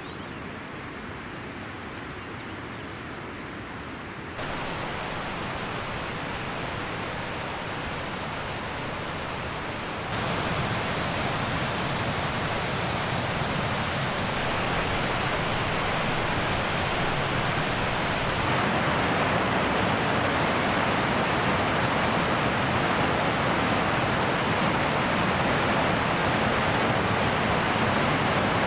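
Steady rushing of a rocky mountain stream. It jumps suddenly louder three times, about 4, 10 and 18 seconds in, and is loudest and brightest near the end.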